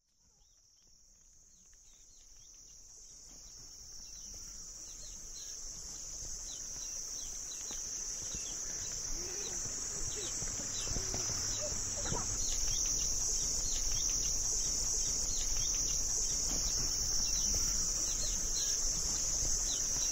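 Insect chorus: a steady, high shrill drone with many short falling chirps beneath it, fading in slowly from silence over the first ten seconds or so.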